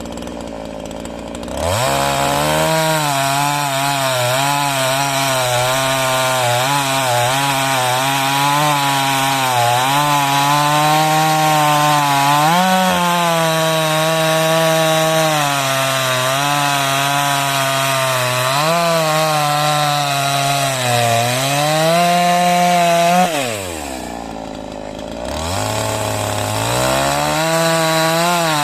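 45 cc Kalibr two-stroke chainsaw idling, then opened up to full throttle about two seconds in and cutting through acacia wood, its pitch sagging and recovering as the chain bites. Near the end it drops back to idle for a couple of seconds, then revs up again.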